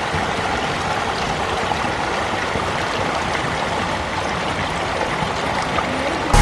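Water jetting from a garden hose onto the paddles of a bicycle-wheel water wheel, a steady rush of splashing water.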